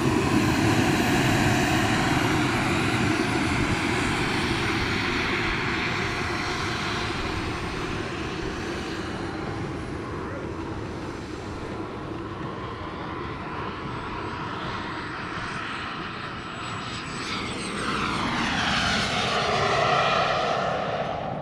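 Turbine engines of radio-controlled model jets: one fades away as it departs after takeoff, a thin high whine carries through the middle, and a second jet grows louder and passes near the end, its pitch falling as it goes by.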